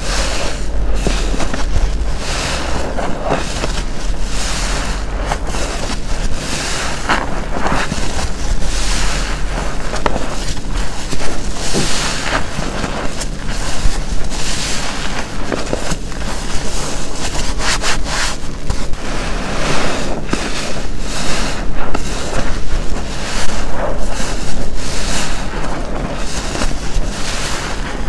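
Sponge soaked with soapy detergent water being squeezed and released again and again: wet squelching and dripping surges, one every second or two.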